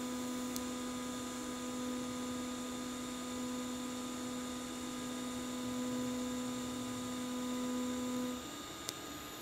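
TIG welding arc running with the pulse setting on at 250 cycles per second, making a steady even tone; the arc cuts off about eight and a half seconds in.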